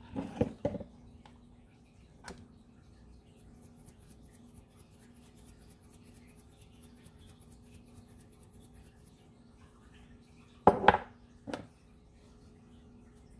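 Short clatters and knocks of food being handled on a plastic cutting board: a quick cluster at the start, a single click about two seconds in, and the loudest clatter, with a second knock, near eleven seconds. Under them runs a steady low hum and, for a few seconds in the middle, a faint fast high ticking.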